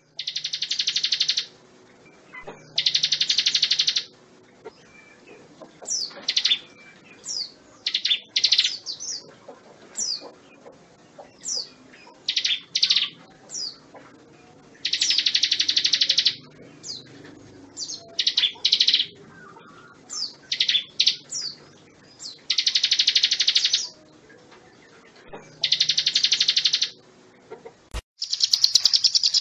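A songbird singing loud, fast rattling trills about a second and a half long, six times, with runs of short sharp chirps and whistles between them.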